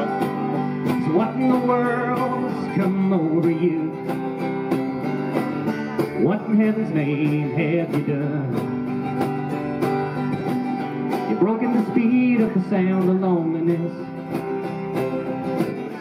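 Live acoustic country band playing: strummed acoustic guitar and mandolin over a steady beat, in a passage with no sung words.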